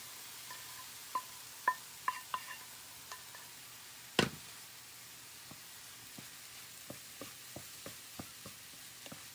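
Wooden spatula stirring and mixing fried rice in a nonstick frying pan over faint sizzling: a few light ringing clinks of pan on pan in the first couple of seconds, one sharp knock about four seconds in, then a run of soft taps, about three a second, as the rice is turned.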